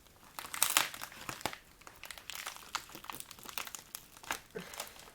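Packaging crinkling and crackling in irregular bursts as it is handled and opened, busiest about half a second to a second in.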